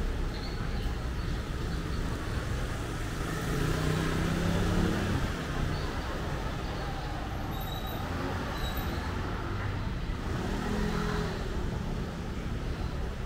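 Urban street ambience of motor traffic, with a vehicle passing more loudly about four seconds in and another around ten seconds in.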